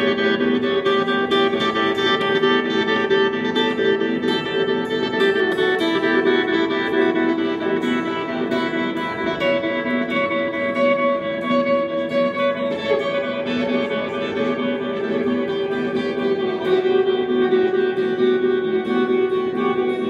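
Live avant-garde drone music: several sustained tones held at steady pitches and layered together, with short plucked, string-like notes ringing over them.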